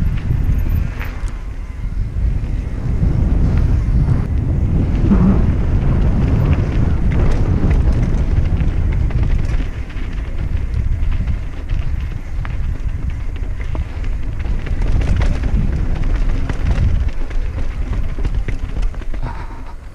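Heavy wind buffeting on the camera microphone while a mountain bike is ridden fast down a trail. Scattered knocks and rattles come from the bike over rough ground.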